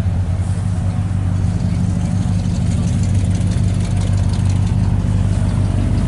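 An engine idling steadily: a low, even hum that holds without revving.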